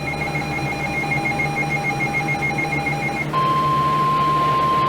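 NOAA Weather Radio emergency alert tones. First a rapidly pulsing high beep over a steadier lower tone, then, about three seconds in, a single steady alarm tone just above 1 kHz takes over. This is the warning alert that precedes a broadcast severe thunderstorm warning.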